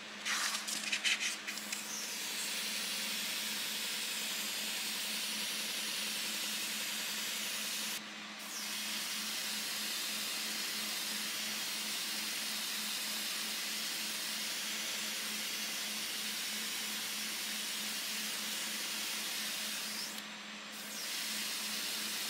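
Airbrush spraying water with a steady hiss of air, fed at low pressure by a homemade 12 V DC compressor pump run at 6 V, whose motor hums steadily underneath. The hiss is uneven with a few clicks at the start and breaks off briefly twice, about 8 seconds and about 20 seconds in.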